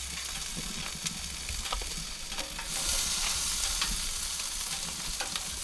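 Spiny lobster tails sizzling on a smoker's hot grill grate: a steady frying hiss that swells a little louder about two and a half seconds in.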